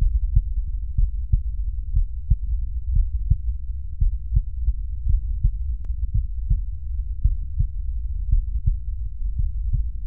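Heartbeat picked up by an electronic stethoscope's chest piece at the mitral focus (cardiac apex): low, dull lub-dub heart sounds repeating steadily about once a second. These are the normal physiological first and second heart sounds.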